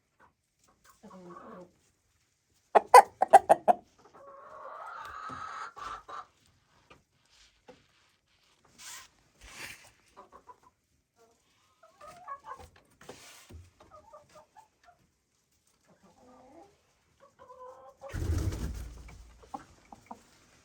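Chickens clucking. A quick run of loud squawks comes about three seconds in, followed by a longer drawn-out call, then scattered short clucks. A rush of low noise comes near the end.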